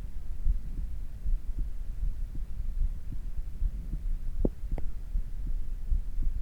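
A person's heartbeat picked up close to the chest: a run of low, dull thumps as the heart settles back toward its resting rhythm after exercise. A couple of sharper clicks come about four and a half seconds in.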